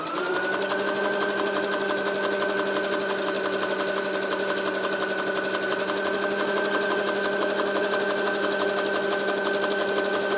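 Brother XL-2250 electric sewing machine sewing a zigzag stitch: the motor whine rises as it starts, then runs at a steady speed with a fast, even needle ticking, and winds down just before the end. This is a test run on zigzag after repair of a knocking, dragging fault.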